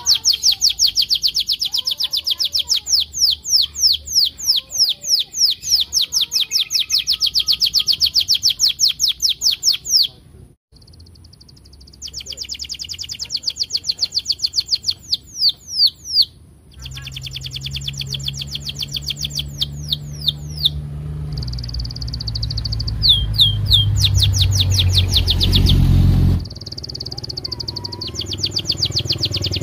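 A red-orange domestic canary singing at full drive: long rolling trills of rapid, repeated high chirps, sung in several long phrases with short pauses between them. A low hum builds underneath in the second half and cuts off sharply a few seconds before the end.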